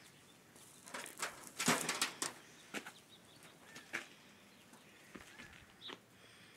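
A strutting white turkey tom, body feathers puffed out, making short rustling and scuffing sounds with its feathers: a quick cluster in the first two seconds, then a few single ones.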